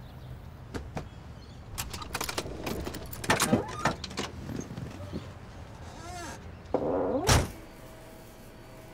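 A run of clicks and knocks inside a car, then a car door creaking and shutting with one heavy thud about seven seconds in.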